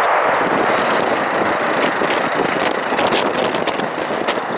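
Airbus A380 jet engines making a loud, steady rush of noise that fades slightly as the airliner rolls out along the runway after landing. Wind buffets the microphone.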